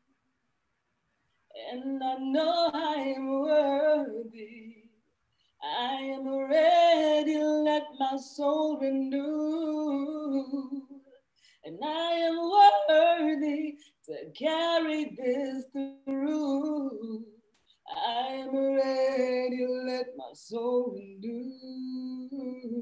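A woman singing solo and unaccompanied, in about five long held phrases with short pauses for breath between them.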